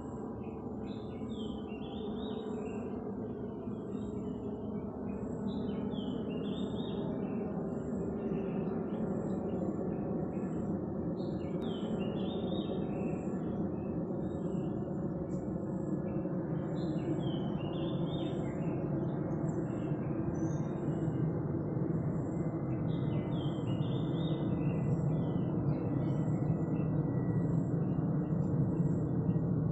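Short bursts of bird chirps, a quick cluster about every five to six seconds, over a steady low background noise that grows slightly louder, with a faint repeated high ticking.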